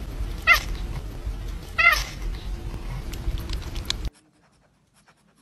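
A cat meows twice, two short wavering calls about a second and a half apart, over a steady low background noise. The sound cuts off about four seconds in.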